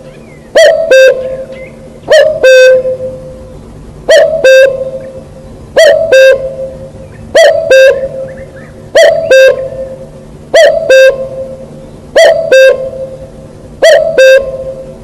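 Common cuckoo calling its two-note "cuck-oo", a higher note falling to a lower one, repeated nine times about every second and a half. The calls are loud enough to clip and distort.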